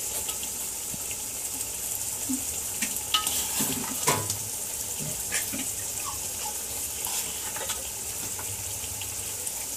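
Biryani masala gravy bubbling and sizzling hard in a large aluminium pot, a steady hiss with a few light clinks and knocks against the pot.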